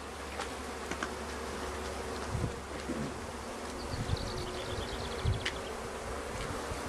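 A package of honey bees in a wooden, screened shipping cage buzzing steadily. A few faint clicks sound over the hum.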